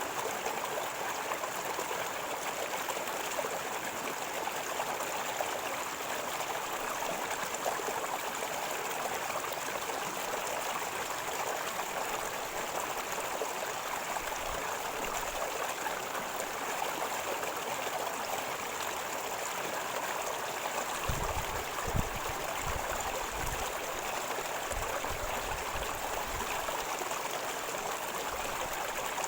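River water flowing and gurgling in a steady rush, with a few short low rumbles a little past the middle.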